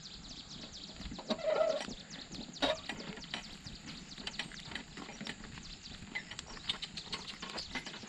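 A loaded metal wheelbarrow rolling over a rough dirt track, rattling and knocking in quick, irregular clicks with footsteps. There is a brief animal call about a second and a half in.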